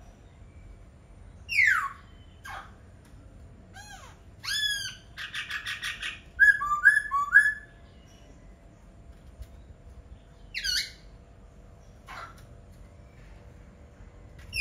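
Laughingthrush (khướu) singing in loud, separate phrases: sweeping whistles that fall in pitch, a run of arched notes leading into a fast rattle, then a burst of rich, varied notes, with a pause before another falling whistle.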